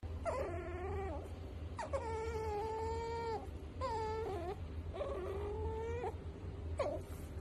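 Pet otter vocalising while its chin is scratched: a string of about five drawn-out whining calls, each held steady and then dropping in pitch at the end, the second the longest at about a second and a half, and the last a brief squeak near the end.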